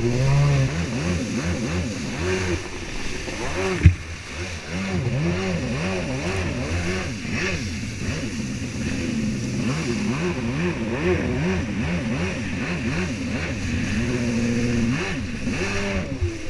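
Backie Chan freestyle jet ski's 760 engine revving up and down over and over as the throttle is worked, over the rush of water spray. A single sharp knock about four seconds in.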